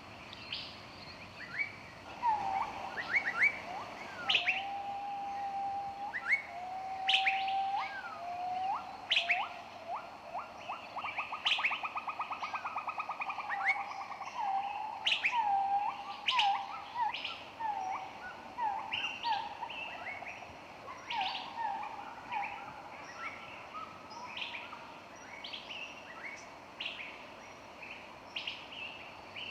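Several songbirds singing in a forest chorus: short high chirps come throughout, and lower whistled phrases with a fast trill fill the first two-thirds.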